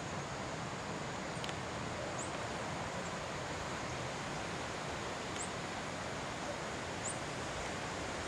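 Steady outdoor ambience of wind and rustling. Three short, high, rising bird chirps come through it, about 2, 5½ and 7 seconds in.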